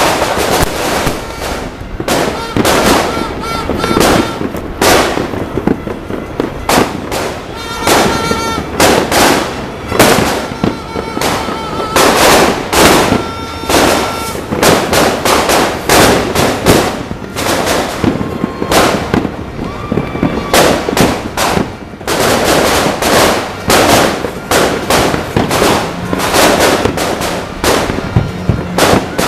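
Fireworks and firecrackers going off in a dense, continuous barrage of overlapping bangs and sharp cracks, near and distant.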